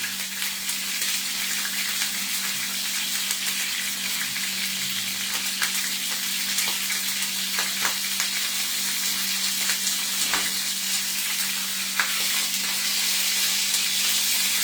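Chuck roast searing in a hot pan: a steady sizzle with scattered crackling pops of grease.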